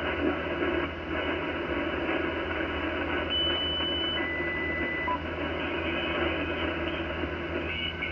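Icom IC-756PRO HF transceiver receiving on lower sideband while being tuned down the 40-metre band: steady static and band noise. About three seconds in, a steady whistling tone sounds, then drops to a lower whistle for about a second, as the dial passes a carrier.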